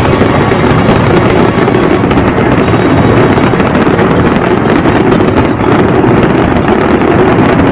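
Fireworks going off in a dense, continuous display, loud and without a break.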